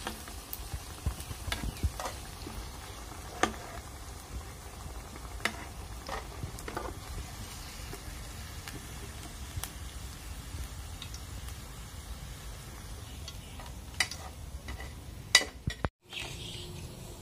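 Bitter gourd pakoras frying in oil in a pan with a steady sizzle, broken by scattered clinks of a steel spoon against the pan and plate as the pakoras are lifted out.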